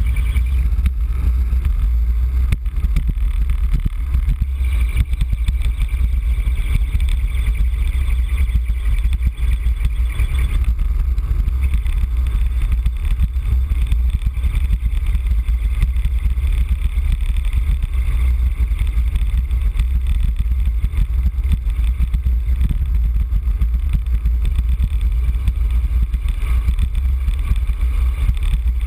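Wind buffeting the microphone during a fast road-bike descent: a steady, loud low rumble, with the hiss of bicycle tyres on a wet road beneath it.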